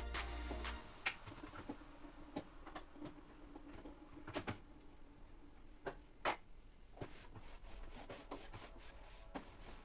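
Background music cutting off within the first second, then scattered light clicks and knocks in a small room, the loudest about six seconds in, over a faint steady hum.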